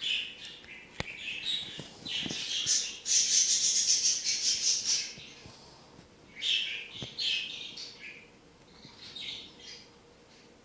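Budgerigar chirping and twittering in short high bursts, with a loud, fast, rattling chatter lasting about two seconds near the middle.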